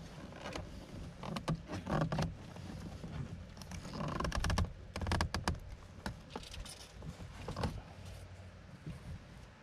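Irregular clicks, taps and small knocks of hands handling parts and wiring, over a low steady hum.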